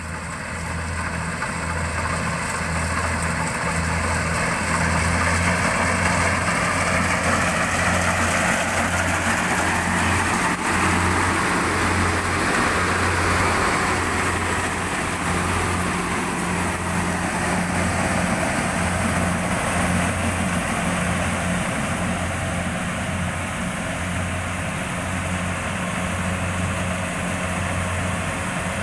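Rice combine harvester running: a steady, deep engine drone under a broad mechanical rush, growing louder over the first few seconds and loudest around the middle.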